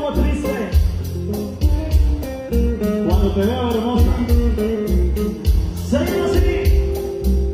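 Live Latin band music: a male lead singer over electric bass, drums, saxophone and trumpet, with a steady pounding bass beat. Held notes come in about six seconds in.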